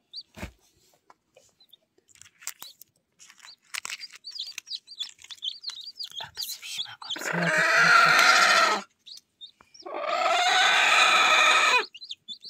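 Newly hatched chicks peeping in short high calls, then two loud drawn-out calls from an adult chicken, each lasting a second and a half to two seconds, about seven and ten seconds in.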